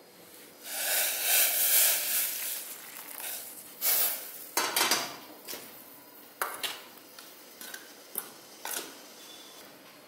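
Hot water poured into string hopper flour in a stainless-steel bowl for about two seconds. Then a metal spoon mixes it into dough, with a number of sharp clinks and scrapes against the bowl.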